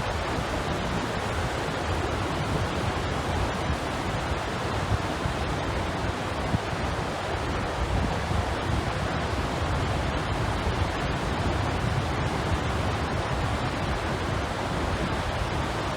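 Steady roar of rough, rushing water after a typhoon, with wind buffeting the microphone in a low rumble.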